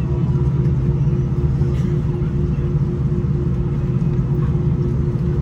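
Steady low rumble inside a jet airliner's cabin as it taxis to the gate after landing, with a steady hum tone over it.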